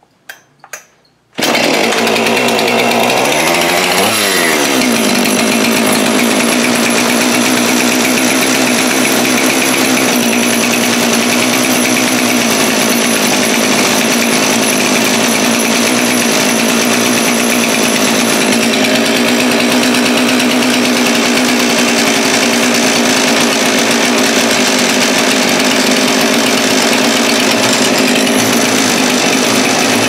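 Two-stroke chainsaw engine running steadily on the bench while brake cleaner is sprayed around its crankcase to test for an air leak; its revs swing briefly about four seconds in. The owner traces the leak to the PTO-side crank seal or bearing.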